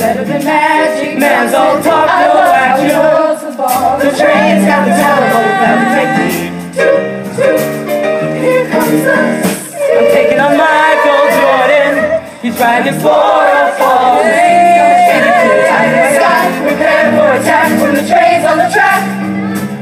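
A chorus of mixed male and female voices singing a musical-theatre song over instrumental accompaniment, with a few brief dips between phrases.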